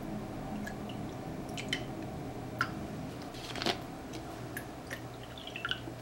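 A plastic drink bottle handled and opened, with scattered clicks and crackles, then a drink poured into a glass, with a few splashy ticks near the end. A steady low hum runs underneath.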